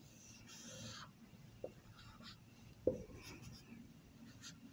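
Marker pen drawing on a whiteboard: faint rubbing strokes as the sides of a triangle and corner letters are drawn, with two light taps in the middle.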